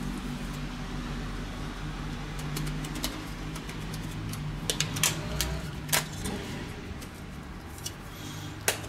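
Hand-held metal tube squeezer clicking as it is worked along a tube of tomato-paprika paste, a handful of sharp clicks over a steady low hum.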